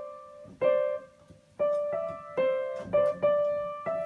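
Upright piano keys pressed by a cat's paws: about six slow, irregular single notes, sometimes two together, each ringing and fading before the next.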